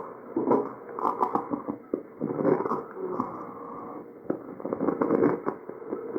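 Tracheal breath sounds picked up by an electronic stethoscope: breaths swelling and fading about once a second or two, with many brief crackles scattered through them.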